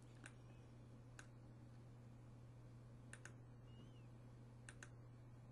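Near silence with faint computer mouse clicks: two single clicks, then two quick pairs, over a steady low hum.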